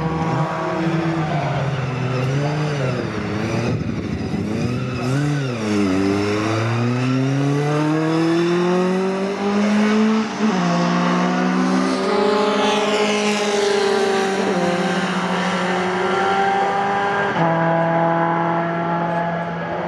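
Race pickup truck engines running hard at racing speed. The pitch dips and climbs as they lift off and get back on the throttle, and it jumps sharply several times at the gear changes.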